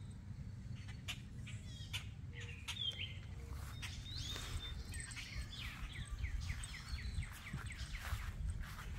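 Small birds chirping, ending in a quick run of short falling chirps from about five seconds in, over a steady low rumble.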